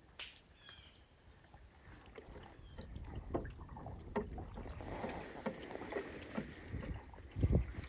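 Canoe paddling: irregular splashes and knocks from paddle strokes against the water and hull over a low rumble, with a heavy thump near the end.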